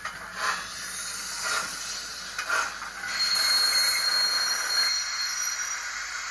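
Steam locomotive sound effects from a Hornby HM7000 sound decoder playing through the model's small sugar cube speaker. Slow steam chuffs come about once a second, then about three seconds in a high whistle sounds and is held for roughly two and a half seconds.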